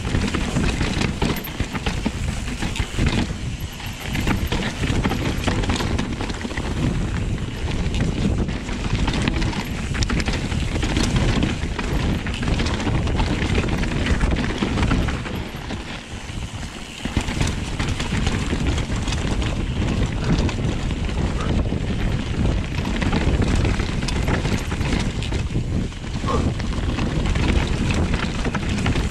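Mountain bike ridden fast down a dirt forest trail: wind rushing over the microphone, tyres on loose dirt, and the bike rattling and knocking over bumps. The noise eases briefly about halfway through.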